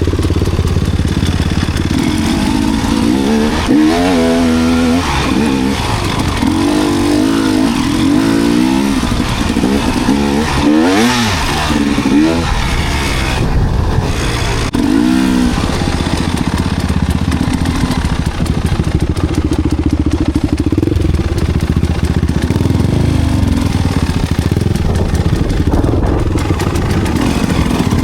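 Enduro dirt bike engine running while riding, its pitch rising and falling several times with the throttle in the first half, then holding steadier.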